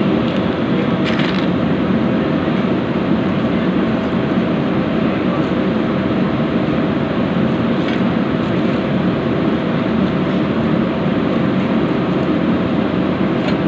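A machine running steadily: a loud, even drone with a few steady tones in it, unchanged throughout, with a couple of faint clicks.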